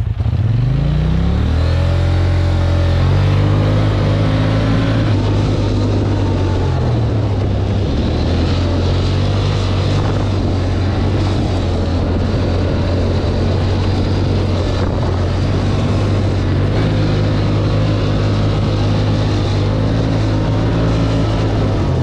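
Polaris ATV engine revving up over the first couple of seconds, then running steadily at speed under way, its pitch dipping and rising slightly now and then.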